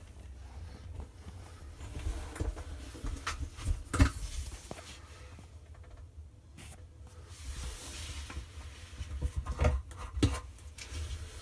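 Handling noises: scattered knocks, clicks and rubbing over a low rumble, with a sharp knock about four seconds in and a cluster of knocks near the end.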